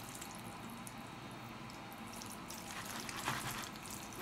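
Chopsticks lifting and stirring sauce-coated jajangmyeon noodles in a plastic takeout container: faint wet, sticky sounds, with a run of small clicks and squelches from about halfway in.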